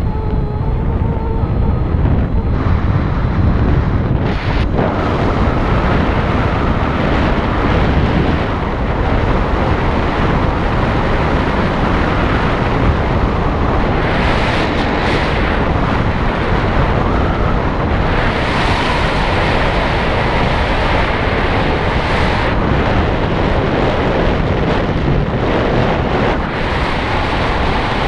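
Strong wind rushing over the microphone, a loud, steady roar that swells and eases a little.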